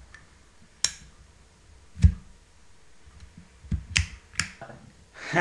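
A metal pocket lighter being flicked over and over to light it: a sharp click about a second in and two more close together near the end, with two dull low thuds between them.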